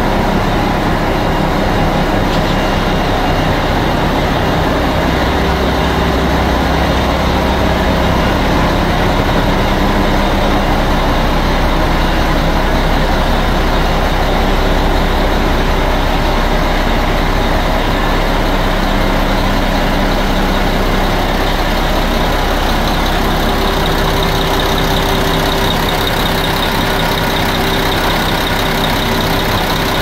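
2000 Mack DM690 concrete mixer truck's diesel engine idling steadily.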